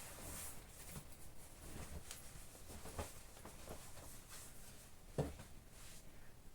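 Faint rustling of clothes being handled and folded, with a few light knocks, the sharpest about five seconds in.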